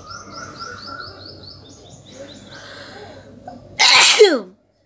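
A woman sneezes once, loudly, about four seconds in: a short explosive burst whose voiced part falls in pitch.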